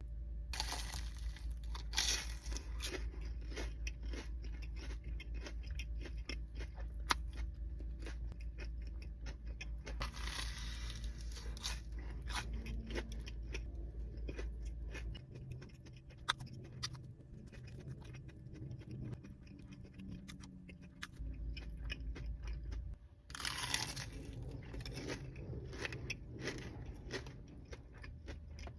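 Close-miked eating of a crispy batter-fried Korean corn dog: many irregular crunches from biting through the crust, mixed with chewing.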